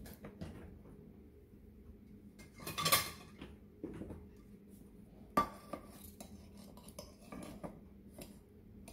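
Metal cake server scraping and clinking against a wire cooling rack as a slice of glazed cake is cut and worked loose. A louder scrape comes about three seconds in and a sharp clink a couple of seconds later, among smaller taps.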